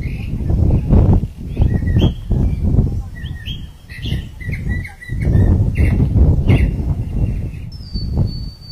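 Small birds chirping in short, scattered notes, with a thin high whistled note near the end, over a loud, uneven low rumble.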